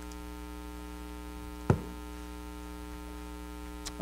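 Steady electrical mains hum, with one sharp thump a little under halfway through and a faint click near the end.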